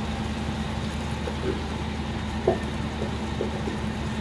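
Chicken frying in wet masala in an iron karahi over a coal fire, under a steady low mechanical hum, with a few faint clicks.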